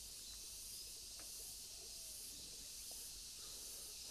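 Insect chorus from the garden vegetation: a faint, steady, high-pitched hiss-like drone.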